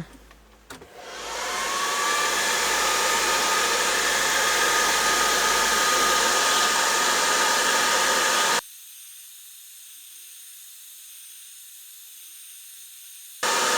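Hair dryer switched on about a second in, its motor whine rising as it spins up, then blowing steadily as hot air is played over the TV board to warm the capacitors under the heatsink plate. Near the two-thirds point the sound drops suddenly to a thin hiss for several seconds, then comes back full just before the end.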